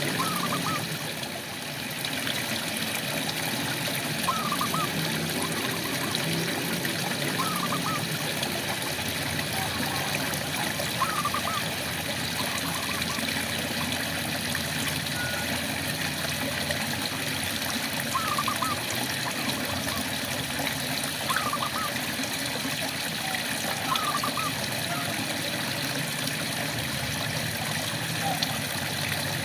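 Steady rain with a frog calling now and then, about eight short calls of two or three quick notes each, a few seconds apart.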